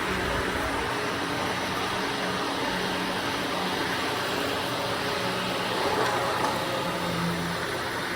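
Carpet-cleaning machine running steadily: a continuous rushing noise over a low hum.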